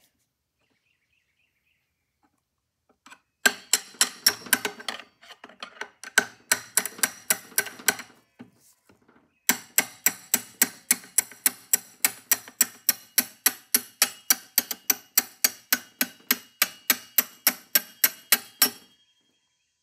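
A hammer striking a brass drift rod in quick, ringing metal-on-metal taps, about three a second, driving the shaft out of a Victor phonograph's spring motor so that the spring barrel comes free. Three runs of taps follow a few seconds of near silence, and the last run is the longest.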